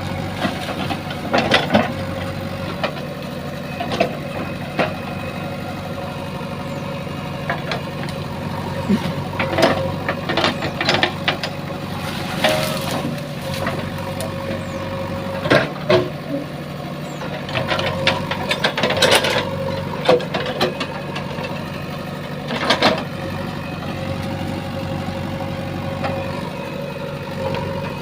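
JCB 3DX backhoe loader's diesel engine running steadily, with scattered sharp knocks and scrapes every few seconds.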